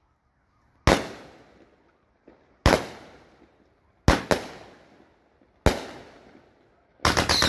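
A 200-gram consumer fireworks cake (Raccoon Fireworks' Monkey Business) firing single shots: five sharp bangs, roughly a second and a half apart with two close together, each trailing off over about a second. Near the end a dense run of rapid bangs begins.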